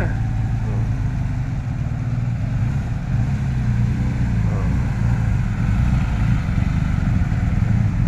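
Motor vehicle engines running with a steady low rumble.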